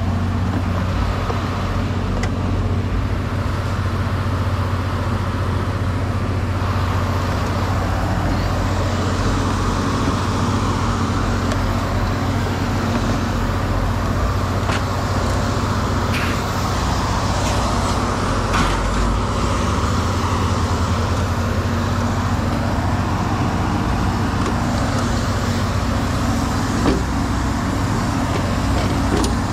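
A motor vehicle driving on the road: a steady low drone of engine and road noise with no change in pace.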